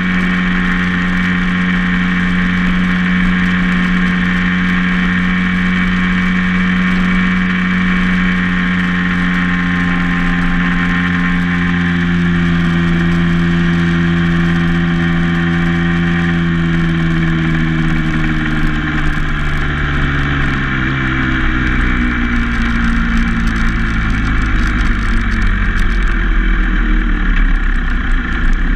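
Vehicle engine running at a steady speed, then falling in pitch over about ten seconds as it slows, with road and wind noise growing louder near the end.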